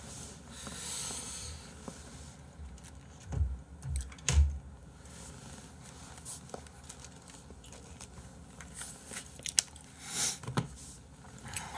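Handling noises at a desk close to the microphone: a brief rustle, two heavy low thumps a second apart, then scattered clicks and knocks as objects are picked up and moved.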